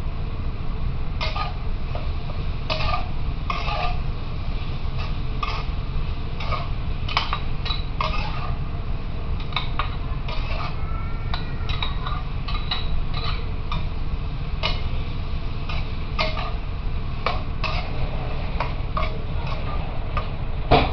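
Eggplant braising in a covered stainless steel pan: irregular light crackles and pops from the cooking, over a steady low hum. A metal clank near the end as the lid is lifted off.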